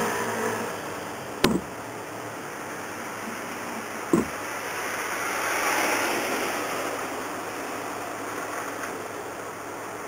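Steady street traffic noise, swelling as a vehicle passes about six seconds in, with two sharp knocks, the first about a second and a half in and the second about four seconds in.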